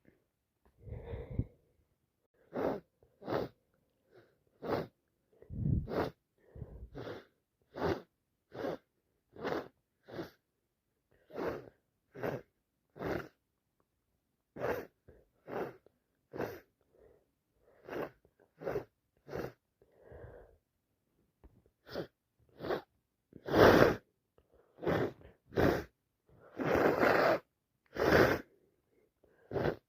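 A person with a head cold sniffling over and over, short noisy sniffs about once a second, with two louder, longer blasts through the nose near the end.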